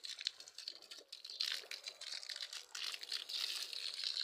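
Water splashing from a jug onto plants and soil: a crackly, uneven spattering that comes in short spells.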